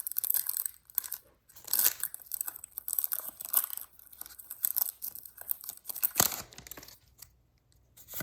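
Foil booster-pack wrapper being torn open and crinkled: irregular crackling rips, the loudest about six seconds in.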